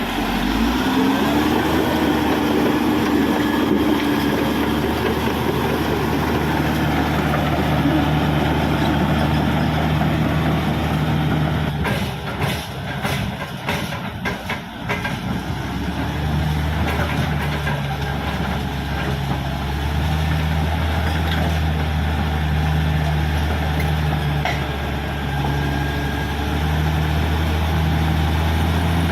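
Caterpillar D6R XL bulldozer's diesel engine running, its pitch rising briefly near the start and then holding, with a run of sharp knocks and clanks about halfway through.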